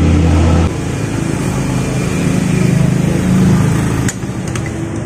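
A motor vehicle engine running steadily, its pitch changing about two-thirds of a second in and again about four seconds in, with a couple of sharp clicks near the end.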